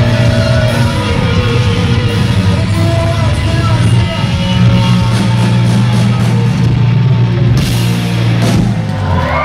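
Rock band playing loud and live: distorted electric guitars, bass and a drum kit, with cymbal crashes near the end.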